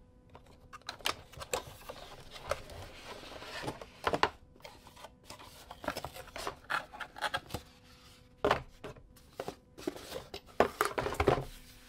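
Cardboard packaging rubbing and scraping, with irregular knocks and clicks, as a boom arm is pulled out of its box insert. The handling is busiest near the end.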